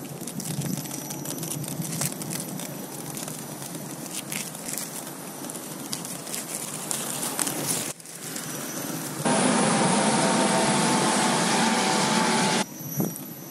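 Steady rushing of wind over the microphone, with tyre rumble from a KingSong 16S electric unicycle riding over paving. About two-thirds of the way in the sound cuts off abruptly, and a louder, even rush runs for about three seconds before cutting off again near the end.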